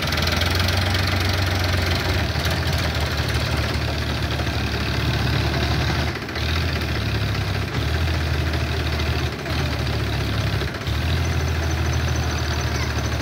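Farmtrac 6037 tractor's diesel engine running hard as it strains to pull a soil-laden trailer whose wheels are sunk in soft ground. The note dips briefly a few times.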